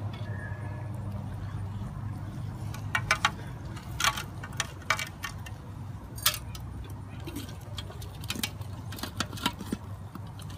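Stainless steel beer can chicken rack and drip pan clinking and rattling as a whole chicken is worked down onto the can, a series of short irregular metallic clicks over a steady low hum.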